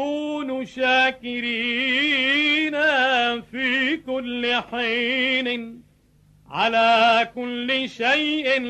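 A solo man's voice chanting the Epistle reading in Arabic church cantillation, holding long notes with ornamented melismatic turns, and pausing for breath about six seconds in.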